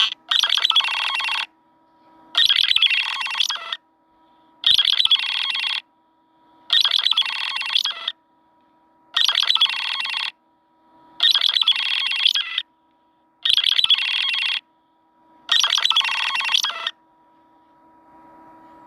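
A Nothing Phone (1) ringtone: a short, clicky electronic phrase of quick pulses repeats eight times, about every two seconds, then stops near the end.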